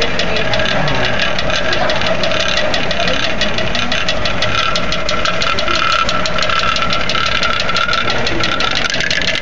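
Magnetic stirrer running steadily, spinning a stir bar in a water-filled flask fast enough to pull a vortex down the middle. It gives a constant hum with rapid light ticking throughout.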